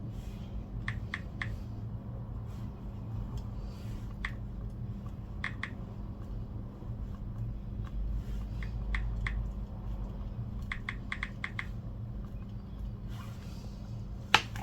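Light, sharp clicks and taps from handling the iPad and small repair tools, mostly in quick runs of two to five, over a steady low hum.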